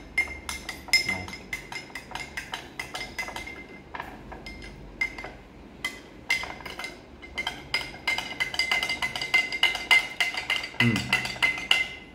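A metal spoon stirring salt into a drinking glass of water, clinking rapidly against the sides of the glass with a ringing tone. The clinks come faster and louder in the second half.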